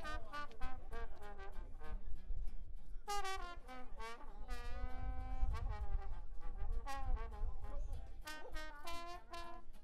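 Brass music playing, trumpet- and trombone-like lines with held notes and some notes sliding in pitch, over a low rumble.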